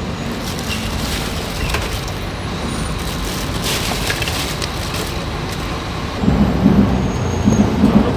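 Steady road traffic noise from a busy street. About six seconds in, a louder low, pulsing sound comes in over it.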